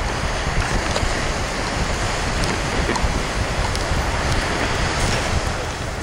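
Steady rushing noise of wind on the microphone mixed with the wash of beach surf.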